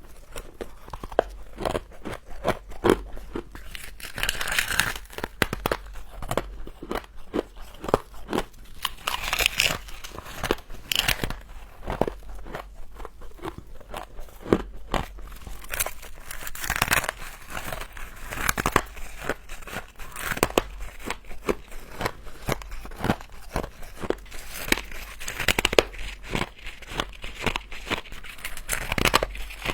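Close-miked biting and chewing of frost: dense crackling crunches throughout, with louder stretches of crunching every five to seven seconds.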